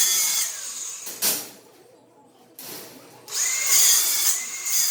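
A handheld electric power tool runs in bursts with a high motor whine, spinning up and winding down each time. One run ends about half a second in, a short blip follows at just over a second, and another run starts at about two and a half seconds.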